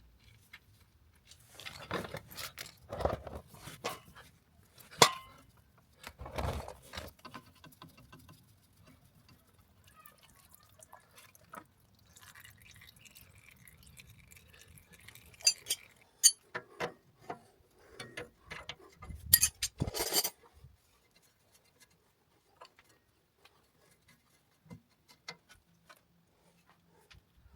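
Scattered metallic clinks and knocks, with some rustling, from handling the oil drain plug and catch bowl while engine oil drains from the sump. The handling sounds come in two busy spells and fall away to faint ticks near the end.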